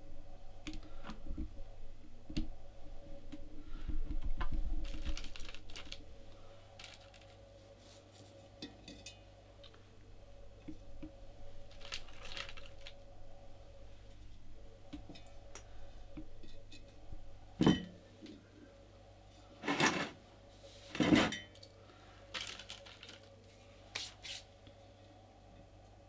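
Hands handling decorating material in a large glass vase: rustling, light clicks and clinks of small objects against glass and the table. A few sharper knocks come near the end, the loudest two about a second apart.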